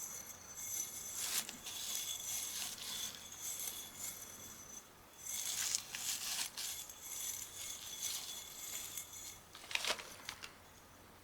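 Crinkly material being handled by hand, rustling and crinkling in irregular bursts with short pauses, and a sharper crunch about ten seconds in.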